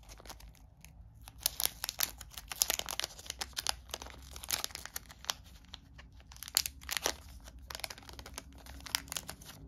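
Small clear plastic baggie crinkling and crackling in the hands as it is opened, an irregular run of sharp crackles.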